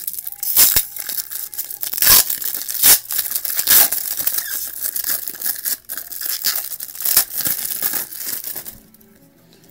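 A foil trading-card pack wrapper being torn open and crinkled, in a run of irregular crackles and sharp rips that stops about nine seconds in.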